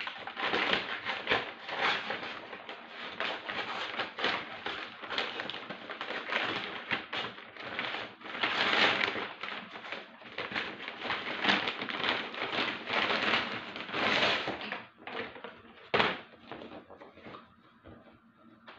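Heavy brown-paper mailer bag crinkling and rustling as it is cut and pulled open and a cardboard box is worked out of it. After about 15 s it dies down, with a single sharp knock a little later.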